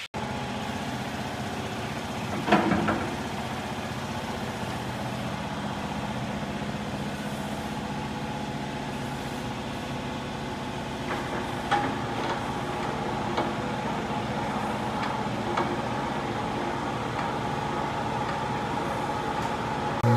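A machine running steadily with a low hum, with a few knocks and clanks over it, the loudest about two and a half seconds in.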